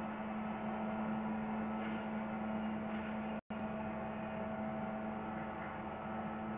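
A steady machine hum with a strong constant low tone under a noise haze. The sound cuts out completely for an instant about three and a half seconds in, then resumes unchanged.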